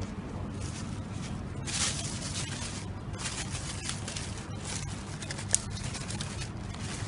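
Black plastic bags rustling and crinkling as hands open and search through them, over a steady low hum, with one sharp click about five and a half seconds in.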